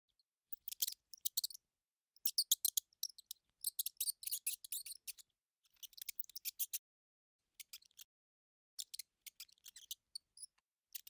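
Mouse sound effect: quick, high-pitched chittering squeaks and clicks in short bursts of several strokes each, with brief silent gaps between the bursts.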